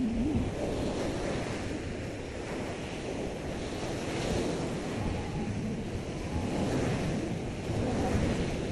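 Sea surf breaking and washing up a sandy beach, with wind buffeting the microphone. It swells louder as a wave crashes near the end.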